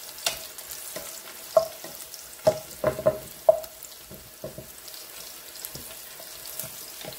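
Sliced onions and green chillies sizzling in oil in a metal saucepan, stirred with a wooden spatula. The spatula knocks against the pan about five times in quick succession around the middle, and each knock rings briefly.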